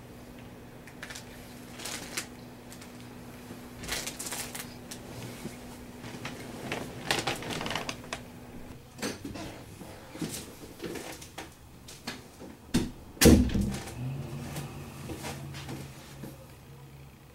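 Handling noise as a camera is picked up, carried and set down: scattered clicks, rustles and knocks, with one loud thump about 13 seconds in, over a faint low hum.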